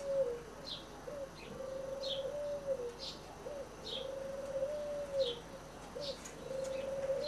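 Birds calling: a low, drawn-out cooing note, each led by a short upturned note, repeats about every two seconds, with short, high, falling chirps between.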